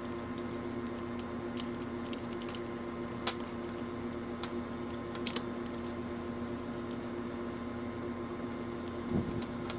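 Steady low electrical hum with a few scattered small clicks and taps from handling on the bench, and a soft thump near the end.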